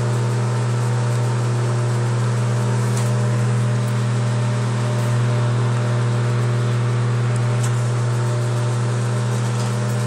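Microwave oven running: a steady low hum with a few faint ticks.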